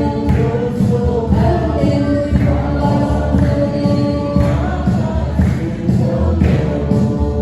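Music: a choir of voices singing a song over instrumental backing with a steady beat.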